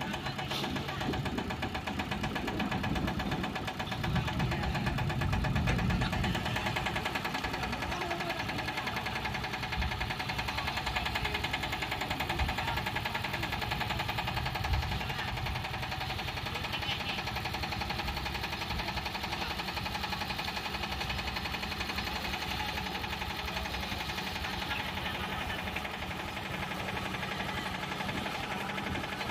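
Yanmar TS single-cylinder diesel engine driving a Hiab 140 crane, running steadily with a knocking beat. About four seconds in it swells louder for a couple of seconds, then settles back.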